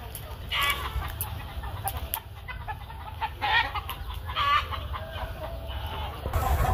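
Domestic chickens clucking, with short calls about half a second in and again around three and a half and four and a half seconds in, over a steady low rumble.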